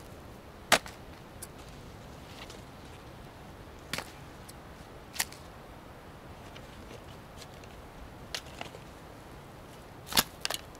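A series of sharp cracks or snaps, about seven, at irregular intervals. The loudest come about a second in and near the end.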